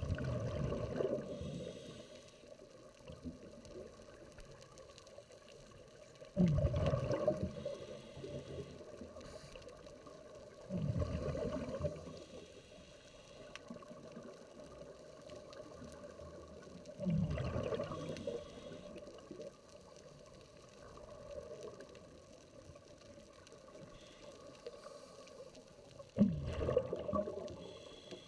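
Scuba regulators exhausting divers' breath underwater during an out-of-gas air-sharing drill: a gurgling rush of bubbles about every five seconds, one per exhalation, with a faint hiss in between.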